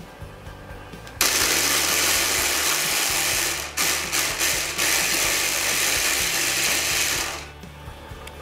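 Hand blender's chopper attachment chopping onion pieces. The motor starts about a second in and runs, is pulsed in a few short bursts midway, runs again, and stops near the end.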